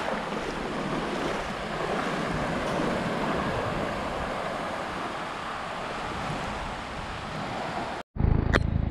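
Ocean surf washing and lapping in the shallows, with wind on the microphone. Near the end it cuts off suddenly, and a steady low rumble takes over.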